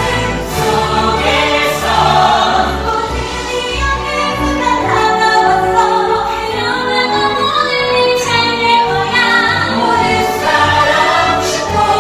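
Choral music: a choir singing over instrumental accompaniment.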